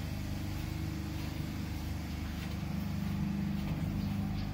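Steady low hum of a ship's engine-room machinery, made up of several steady low tones.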